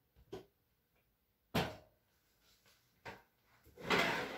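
Knocks and clicks of a wire oven rack as raw fish pieces are set on it, the loudest about a second and a half in, then a scraping rustle near the end.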